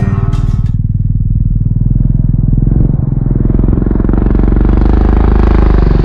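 Heavy diesel engine of harvest machinery running close and loud with a fast, even chug, growing steadily louder. A music track cuts off just under a second in.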